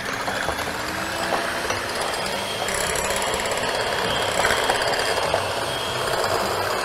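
Handheld electric mixer running steadily, its beaters whipping egg whites in a bowl.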